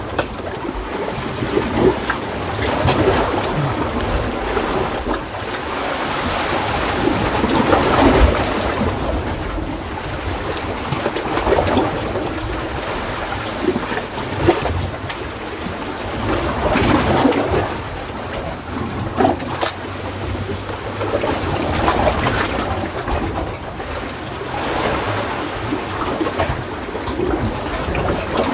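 Seawater surging and washing through a narrow gap between coral rocks, swelling louder every few seconds as each surge comes in.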